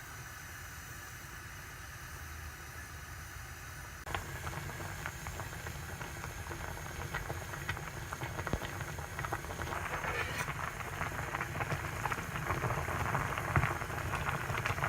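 Food sizzling and crackling in a hot frying pan, a dense patter of small pops that picks up sharply about four seconds in and grows louder toward the end.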